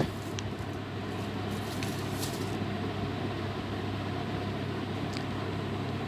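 Steady mechanical hum in the background, with a few faint crinkles of plastic wrapping.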